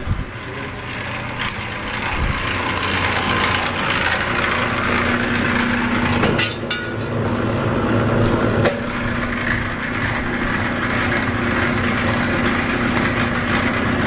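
LD-007 scrap wire stripping machine running and stripping a cable, a steady mechanical noise from its 1.5 kW motor and rollers. A steady hum joins about four seconds in, and a few sharp knocks come along the way.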